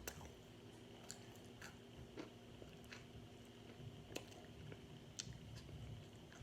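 Person chewing crunchy microwave-baked cornstarch chunks, with a sharp crisp crunch about once a second between softer mouth sounds.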